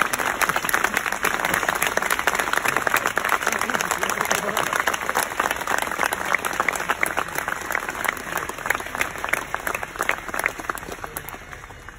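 A large crowd applauding, the clapping gradually thinning out and dying away over the last few seconds.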